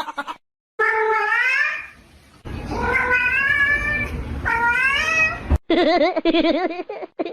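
Cat meowing: three long drawn-out meows that rise in pitch, followed by a lower wavering call near the end.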